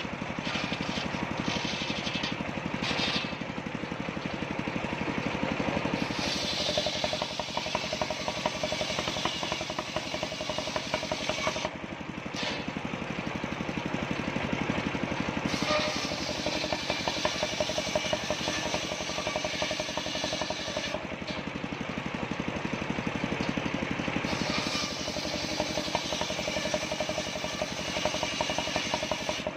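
Home-built circular saw bench ripping waru (sea hibiscus) wood into battens. The drive runs steadily, and the cutting noise grows louder and brighter several times as the blade works through the wood, easing in short gaps between cuts.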